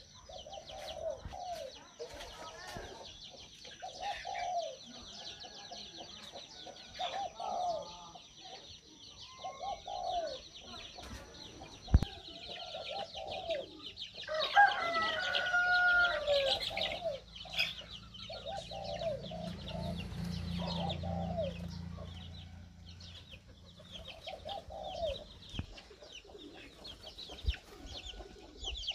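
Chickens clucking over and over, one call every second or so, with a louder flurry of calls about halfway through. A thin high steady whine runs under the first half and stops suddenly, and a low hum rises and fades a little later.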